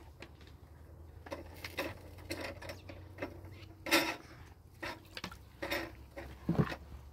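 Metal dishes being washed by hand in a steel basin of soapy water: a steel pot and a metal cup knock and scrape against each other, with scattered clinks. The loudest comes about four seconds in, and another a little after six seconds.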